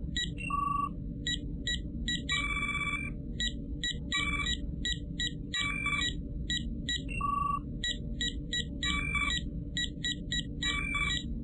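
Star Trek LCARS computer console sound effects: a repeating pattern of short electronic beeps and chirps, roughly one cluster a second, over a steady low hum.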